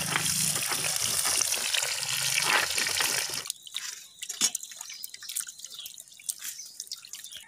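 Fish frying in hot oil in a wok, a loud steady sizzle with crackles. About three and a half seconds in it cuts to quieter wet squelches, drips and light clinks of small raw fish being rubbed in water in a steel plate.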